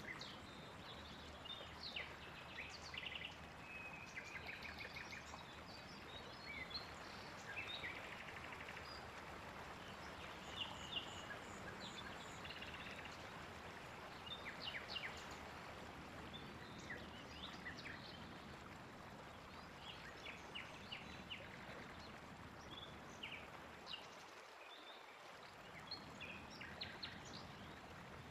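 Several songbirds chirping and trilling on and off over a faint, steady hiss.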